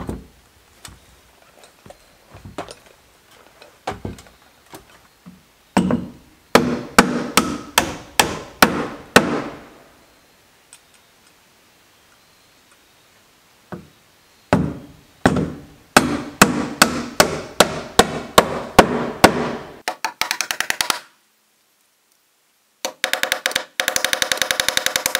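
Hammer driving nails into plywood siding: runs of sharp blows about three a second, with pauses between runs. Near the end the strikes come as a much faster, even rattle.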